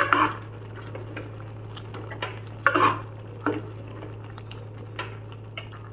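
Steel ladle stirring thick chickpea curry in a nonstick pan: scattered scrapes and clinks of the ladle against the pan, the loudest a little under three seconds in, over a steady low hum.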